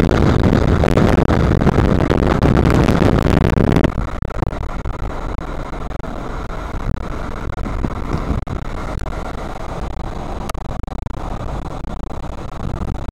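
Car cabin noise while driving: a loud, dense road-and-engine rumble for about the first four seconds, then dropping suddenly to a quieter, steady hum.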